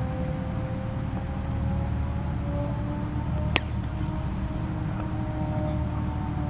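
A single sharp crack of a cricket bat striking the ball about three and a half seconds in, over a steady low background rumble with faint drawn-out tones.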